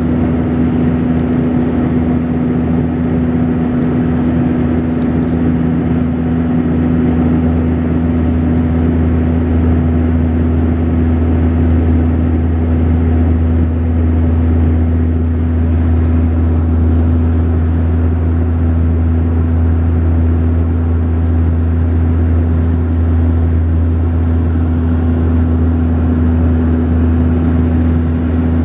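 Saab 340B's twin turboprop engines and propellers droning steadily as heard inside the cabin in flight: a constant low hum with a steady tone above it.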